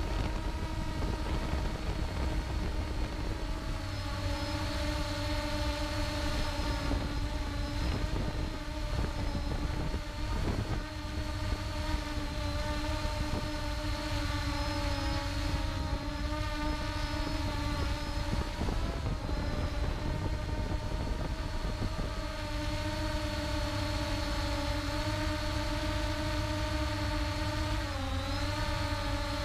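Ehang Ghost quadcopter's motors and propellers whining steadily over a low rumble. The pitch wavers slightly as the motors adjust and dips briefly near the end.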